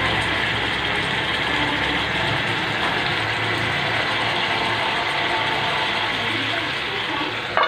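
Chicken and potato curry gravy sizzling in a pot, a steady crackling hiss. A sharp knock comes right at the end.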